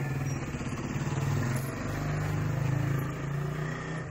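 An engine running with a low, steady hum that fades near the end.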